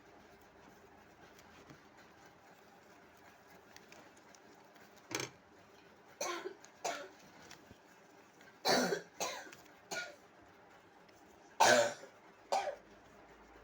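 A person coughing in short fits: about eight brief coughs in small groups over the second half.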